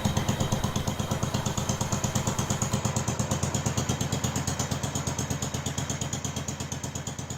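10 hp Kohler single-cylinder engine of a mid-1960s Moto-Mower garden tractor idling steadily with an even, rapid beat, growing gradually fainter.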